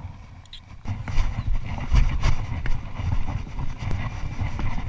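Uneven low rumble of wind and handling noise on the camera's microphone while walking across grass, with scattered soft knocks like footsteps. It starts suddenly about a second in.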